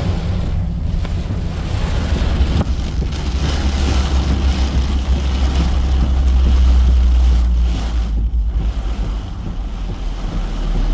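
Strong storm wind buffeting the microphone: a heavy rumble under a rushing hiss that swells about two-thirds of the way through.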